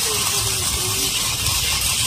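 Toy remote-control off-road monster truck driving over concrete, its small electric motors and plastic gears whirring under a steady hiss.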